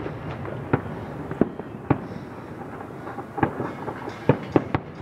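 Fireworks display going off: an irregular string of sharp bangs, about ten in five seconds, bunched more thickly near the end.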